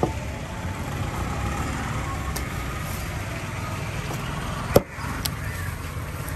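Steady low background rumble with a few faint clicks and one sharp knock about five seconds in.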